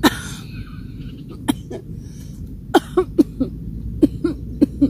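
A woman coughing from the sting of wasabi eaten with a pickle: one harsh cough at the start, then a string of short, sharp coughs in the second half.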